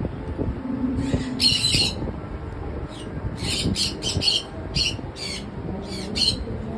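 Patagonian conure giving a run of short, harsh screeches, several in quick succession in the middle.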